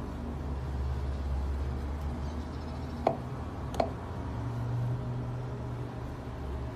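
A knife cutting through a hard chocolate shell on a cake, which cracks sharply twice about three seconds in, a little under a second apart, over a steady low hum.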